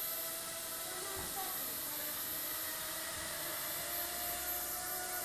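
Hubsan X4 micro quadcopter's four small motors and propellers whirring steadily as it hovers and skids low over a wooden floor, with two soft low thumps about one and three seconds in.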